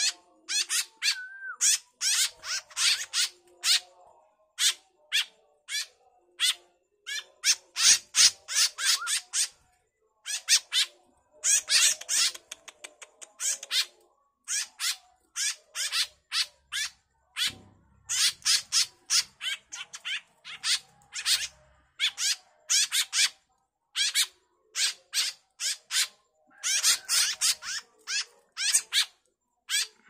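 Fledgling white-breasted woodswallows (kekep) begging for food as they are hand-fed. Harsh, rasping calls come several a second in runs with short pauses.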